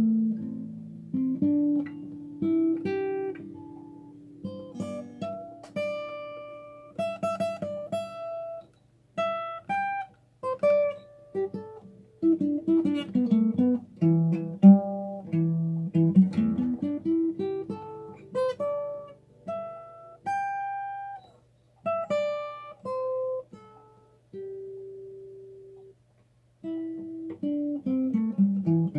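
Acoustic guitar playing single notes of the A minor pentatonic scale, plucked one at a time in runs up and down the neck, with short pauses between phrases.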